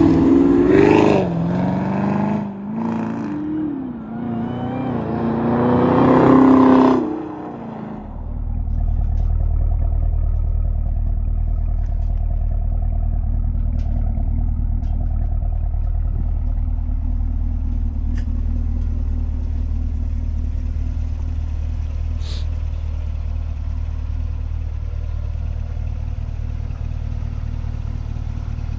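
2018 Camaro ZL1's supercharged V8 revving, its pitch rising and falling through several pulls for about seven seconds. It then drops off and settles into a steady low drone for the rest.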